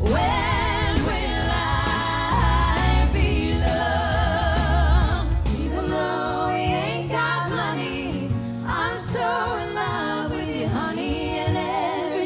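Pop-rock song with several voices singing together with vibrato over a band's drums and bass. About halfway through, the drums and deep bass drop away, leaving the voices over lighter backing.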